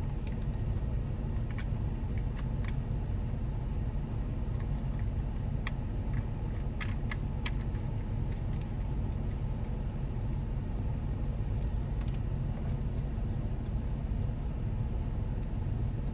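Jeep Wrangler JKU's V6 idling, heard from inside the cabin with the air conditioning running: a steady low rumble. Scattered light clicks and taps come over it as the phone mount's parts are fitted on the dash.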